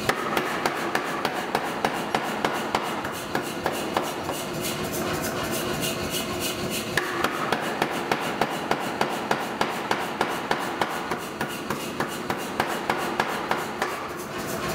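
Mechanical power hammer striking a hot steel bar between its dies in a fast, steady run of blows, about three a second, over the hum of the running machine. The blows thin out for a few seconds in the middle. The bar is being tapered for a forged spatula handle.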